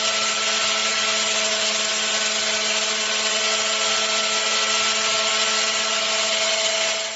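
Handheld angle grinder running at a steady speed: a constant whine over a hiss.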